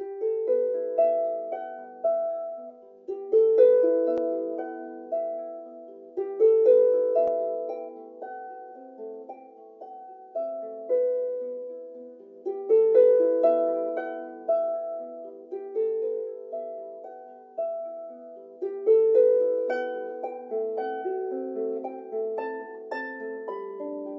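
Improvised solo music on a plucked instrument: single ringing notes in a middle-to-high range, each struck sharply and fading, in short phrases that return every few seconds.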